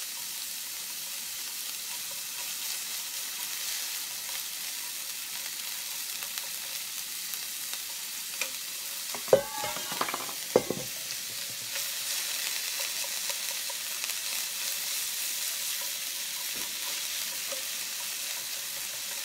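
Ground pork sizzling in an oiled nonstick frying pan while being stirred and broken apart with cooking chopsticks: a steady high frying hiss. About halfway through come a few sharp clanks with a brief metallic ring.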